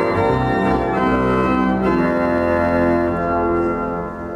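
Pipe organ playing sustained chords, changing chord about two seconds in, then fading out near the end.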